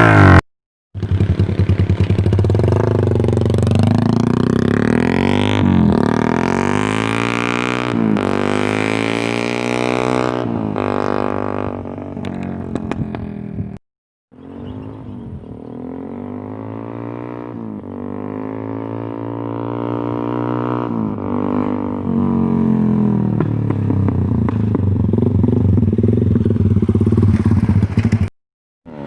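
Suzuki Raider 150 motorcycle engine revving up and down again and again through an AUN Bulate aftermarket exhaust pipe, the pitch rising and falling with each blip. The sound breaks off briefly just after the start, about halfway through and near the end.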